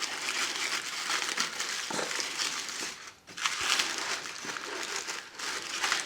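Tissue paper crinkling and rustling as a model wagon is unwrapped by hand, with a brief pause about three seconds in.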